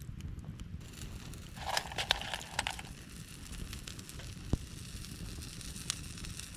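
Campfire crackling, with scattered sharp pops and a denser crunching burst about two seconds in.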